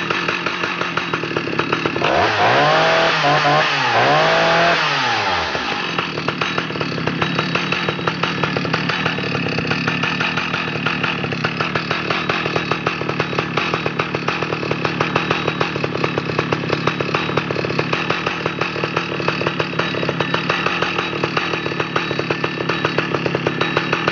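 Stihl 056 chainsaw's 81cc two-stroke engine running: it revs up and falls back twice about two to five seconds in, then settles to a steady idle with an even, rapid firing beat.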